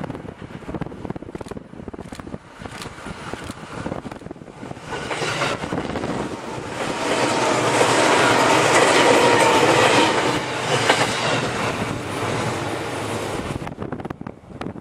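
JR 211 series electric train approaching on the curve and passing close by, the sound of its wheels on the rails building to its loudest about halfway through, then fading as it moves away.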